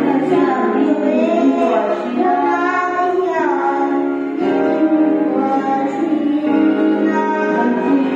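A girl singing a solo song in a gospel style over steady instrumental accompaniment with held chords, amplified through a PA.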